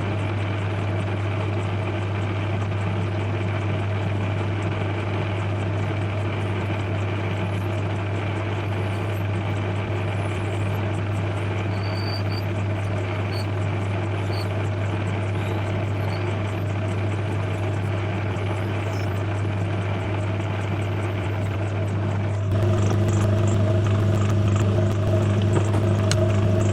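A small metal lathe running with a steady motor hum while a threaded part is trimmed to length. The hum steps up louder, with extra tones, about three-quarters of the way through.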